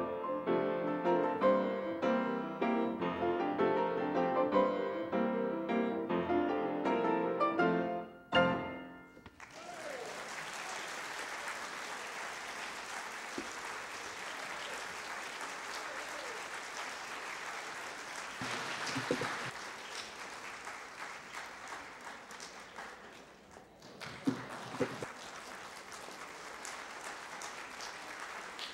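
Piano four-hands on one grand piano, two players at the keyboard, ending on a loud final chord about eight seconds in. Audience applause follows, dipping briefly near the end and then picking up again.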